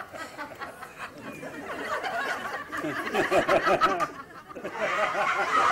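People chuckling and laughing, with some talk mixed in.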